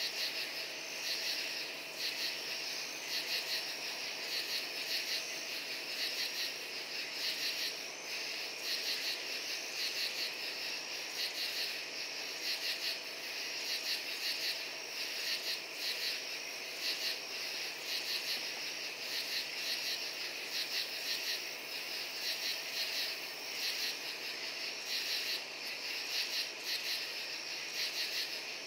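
A night chorus of crickets and katydids: a dense, high, rapidly pulsing chirring. It swells in short rhythmic bursts about once a second.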